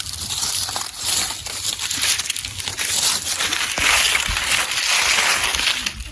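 Continuous crunching and rustling noise with a low rumble underneath.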